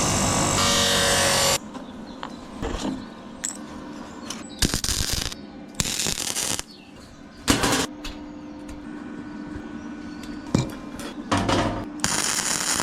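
Flux-core MIG welder laying short welds on steel, fixing hinges to the cart: a weld of about a second and a half at the start, then a few brief tack welds and a longer one near the end, with a low steady hum in between.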